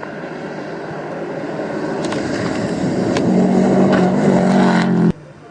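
Rally car coming in at speed on a gravel stage: engine and gravel noise grow steadily louder, with a few sharp stone clicks, and the engine tone comes through clearly a little past halfway. The sound cuts off suddenly near the end.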